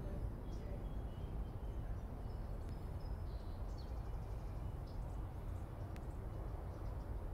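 Outdoor garden ambience: a steady low rumble with several faint, short bird chirps scattered through it.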